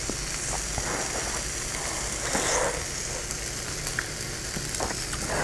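Marinated pork riblets sizzling steadily on an electric tabletop grill, with a few soft chewing and chopstick sounds close to the mic.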